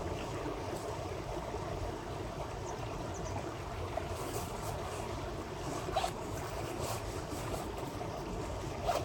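A river rushing steadily, with a couple of short knocks about six seconds in and again near the end.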